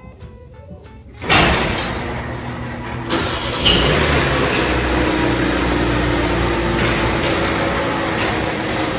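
A garage door opener running as a sectional garage door rolls up its overhead tracks, with a car engine running alongside. The sound starts abruptly about a second in and gets louder about three seconds in.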